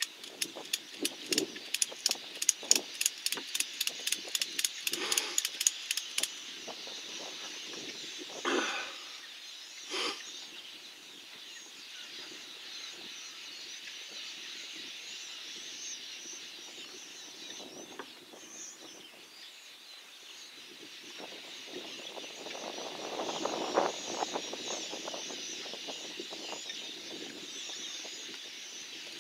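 Natural outdoor ambience with a steady high chirring throughout. A fast, even run of sharp clicks fills the first six seconds, two brief louder sounds follow a few seconds later, and a low rushing noise swells up and fades in the second half.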